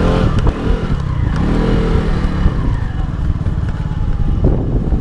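Lambretta V125 Special scooter's 125 cc engine running while riding along at low speed, with steady wind rumble on the microphone.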